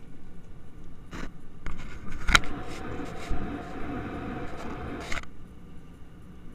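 Clicks, knocks and rubbing from about a second in until it stops sharply past the five-second mark, with the sharpest knock near the middle. The sound is a handheld camera being shifted against an airliner cabin window, heard over the cabin's steady engine drone.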